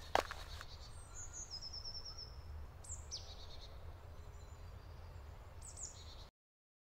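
Faint woodland ambience with a low rumble underneath and a few bird calls: a short, high, rapid trill about a second in, a falling call around three seconds, and another brief call near the end. A single sharp knock comes at the very start, and the sound cuts off abruptly near the end.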